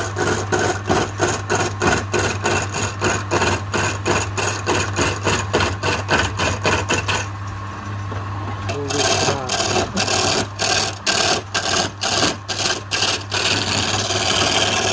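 Wood lathe running with a steady motor hum while a hand-held turning chisel scrapes and cuts the spinning wooden cylinder in rapid rhythmic strokes, about four a second. The cutting stops briefly about seven seconds in, leaving the lathe running, then picks up again.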